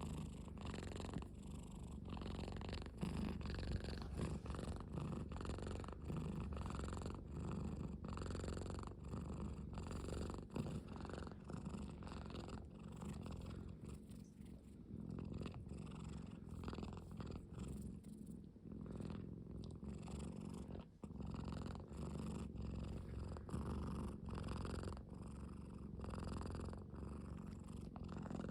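A domestic cat purring steadily: a low, continuous rumble that swells and eases with each breath, easily mistaken for snoring.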